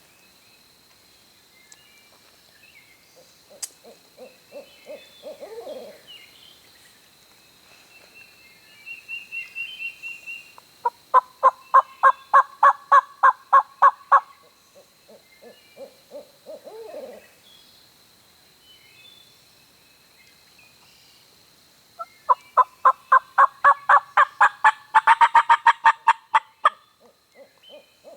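Turkey call run by a hunter to draw a gobbler: two series of loud, evenly spaced yelps at about four a second, the second series longer and speeding up near its end. Fainter, lower calls that fall in pitch sound twice in between.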